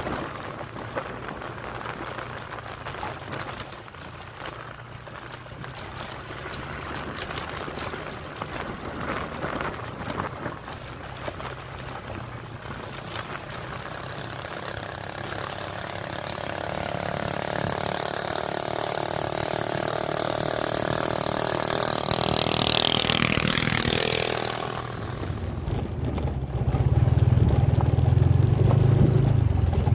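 Motorcycle engine running while riding along a rough rural road, with wind noise on the microphone. About three-quarters of the way through, a high whine slides steeply down in pitch. Near the end, a louder low rumble comes in.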